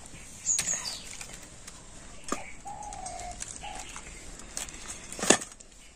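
Knocks and clatter of a cabbage being handled into a stainless steel bowl, with a sharp knock near the end being the loudest sound. A bird calls briefly about halfway: one short steady note, then a shorter one.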